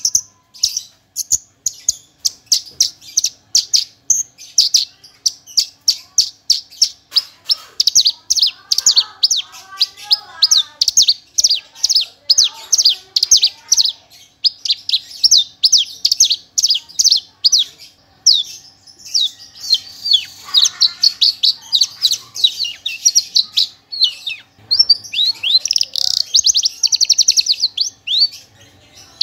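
Horsfield's bush lark (branjangan, Mirafra javanica of the parva race) in continuous song: a rapid-fire string of sharp, high notes, several a second, broken by two stretches of dense, fast trilling, about two-thirds through and near the end. The song is packed with mimicked phrases ("full isian"), the rapid bursts known as "nembak" among Indonesian bird keepers.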